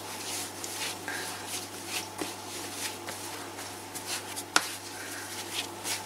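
Hands kneading soft pizza dough on a floured wooden tabletop: soft rubbing and pressing with light pats, and one sharper knock about four and a half seconds in.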